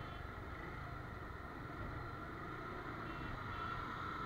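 Motorcycle riding at a steady pace, its engine and road noise running evenly under wind on the microphone.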